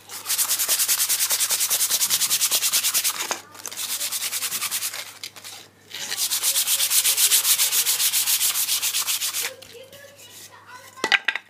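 Sandpaper rubbed by hand in rapid back-and-forth strokes along the edge of a weathered hardwood board, smoothing off splinters. It comes in three spells with short breaks, the middle one quieter. There is a sharp knock near the end.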